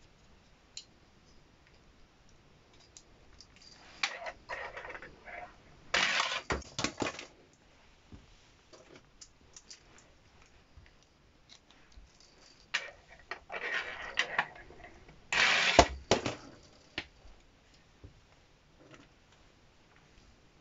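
A small plastic toy monster truck and its plastic key launcher being handled on a wooden tabletop: two bouts of clicking and clattering about ten seconds apart.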